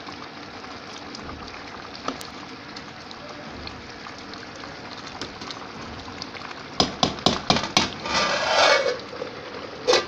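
Rice and beef broth bubbling in an aluminium pot, a steady hiss with faint ticks. About two-thirds of the way in, a metal spoon knocks against the pot several times in quick succession and clatters, and near the end a metal lid clanks down onto the pot.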